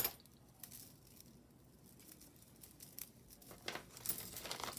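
Quiet handling noise of costume jewelry being picked through: a few faint clicks, then a short stretch of small clicks and rustling near the end.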